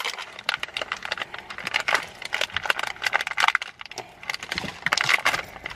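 Plastic mystery-figure packaging crinkling and crackling as it is picked and tugged at by hand to get it open: a rapid, irregular run of small clicks and crackles.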